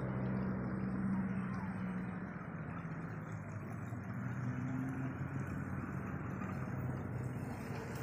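A steady low motor hum over a haze of outdoor noise, with a brief higher tone joining in about halfway through.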